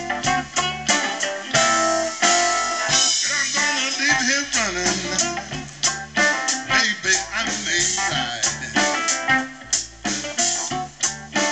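Live blues band playing an instrumental passage: plucked strings (mandolin and guitar) with fiddle over bass and drums, in a steady beat, with sliding notes about three to five seconds in.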